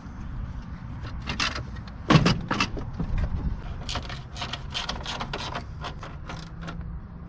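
Irregular clicks and clanks of tools and parts being handled during repair work on a car's front end, the loudest knock about two seconds in, over a low steady rumble.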